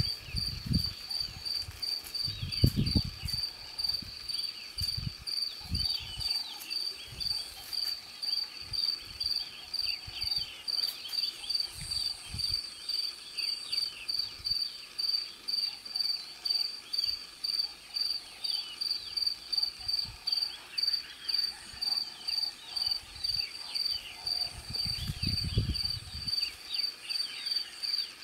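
A cricket chirping steadily in a high, even pulse, about two chirps a second, with a few low rumbles near the start and again about 25 seconds in.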